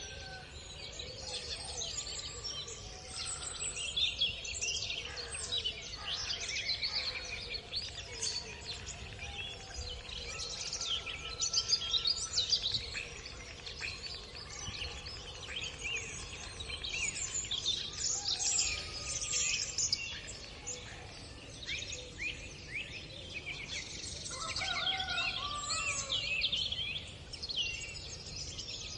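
Dawn chorus of many songbirds, dense overlapping high chirps and trills with a few lower whistled phrases, over a steady low background rumble.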